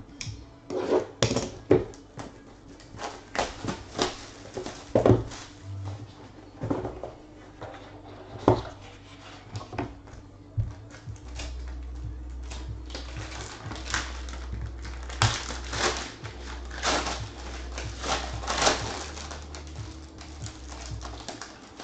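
Plastic shrink wrap torn off a trading-card box, the box opened and a foil card pack crinkled and torn open by hand: a run of irregular crackles and clicks that grows denser in the second half.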